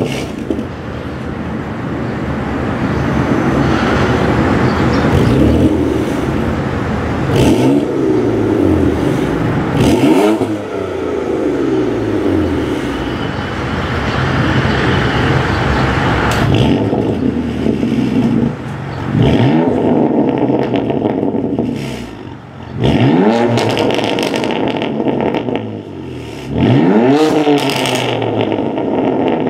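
BMW F80 M3's twin-turbo 3.0-litre inline-six running through a Fi Exhaust valved catback and catless downpipes, with the exhaust valves closed. It idles steadily for about seven seconds after start-up, then is revved five times, each rev a quick rise in pitch that falls back to idle.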